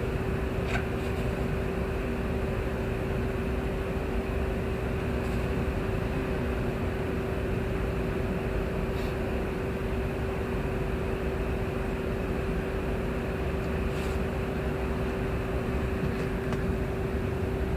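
A steady mechanical hum over an even rushing noise, with a few faint ticks scattered through it.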